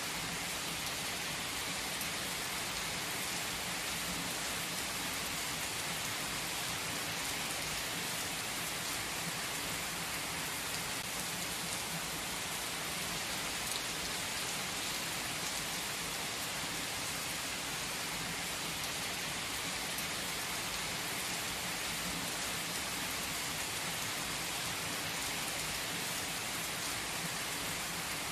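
Heavy rain pouring onto wet asphalt, a steady, even hiss of splashing drops that neither builds nor fades.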